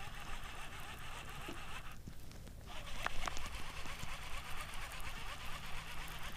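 Steady outdoor background noise on a fishing boat on open water, with a few faint clicks and knocks from handling the rod and reel about three seconds in.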